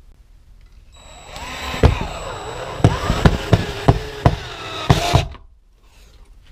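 Power drill driving a screw through a resin shed wall into the floor base, locking the wall in place. The motor whine starts about a second in and rises and falls in pitch, with a string of sharp clicks in its second half. It stops about five seconds in.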